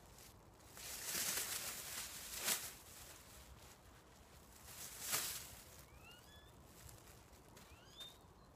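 Plastic carrier bag rustling and crinkling as potatoes are handled, with two sharper crackles. A small bird chirps a few short rising notes near the end.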